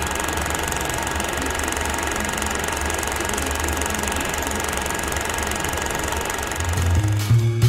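Film projector running: a steady mechanical whirr and rattle with constant hiss. Music with low plucked bass notes comes in near the end.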